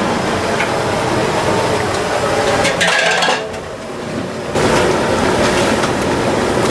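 Hot oil sizzling and bubbling hard in a large iron kadai as batter-coated cauliflower florets (gobi 65) deep-fry, with clinks of a metal spider strainer against the pan. The sizzle dips briefly about three and a half seconds in, then comes back louder.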